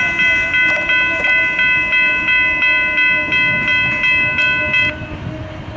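Railroad grade-crossing warning bell ringing rapidly, about three strikes a second, while the gate arms rise, then stopping abruptly about five seconds in: the train has cleared the crossing.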